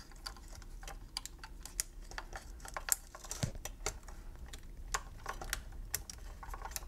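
Irregular light clicks and ticks of a plastic zip tie being fed by hand through a hole in an aluminium crossover plate and started into a loop, a few clicks a second.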